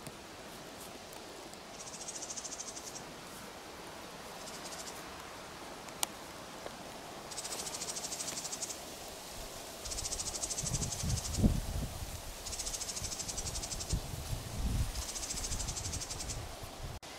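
An insect trilling in short, high, buzzing bursts, about six of them, each lasting a second or so, with gaps between. Low thumps and rumbles join from about ten seconds in.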